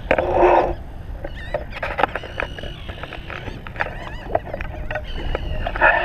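Animal calls, warbling and repeated, with a louder harsh call near the start and another near the end, over a steady low rumble.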